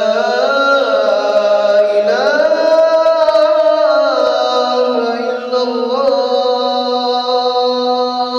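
A man's voice chanting the Islamic call to prayer (azan): one long, ornamented, held phrase with the pitch sliding up and down, fading with a lingering echo at the very end.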